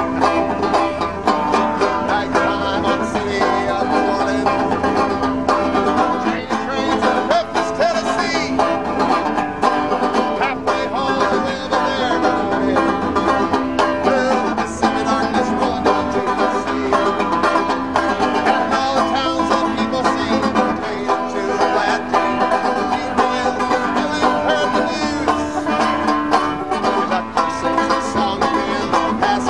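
Bluegrass-style music led by a plucked banjo.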